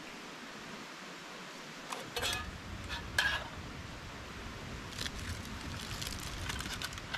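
A camping gas canister stove lights about two seconds in and then burns with a steady low rumble. A metal pan clinks down onto it, and aluminium foil crinkles near the end.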